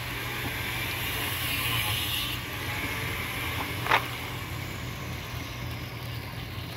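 A steady low motor hum under a hiss of outdoor background noise, with one short, sharp click about four seconds in.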